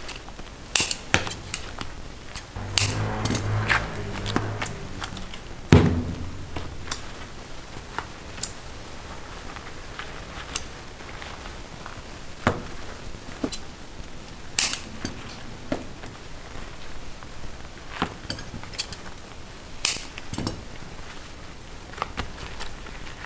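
Metal tools and hard sugar candy knocking and clinking on a candy-making work table, in irregular, scattered strikes, a few of them sharper and louder.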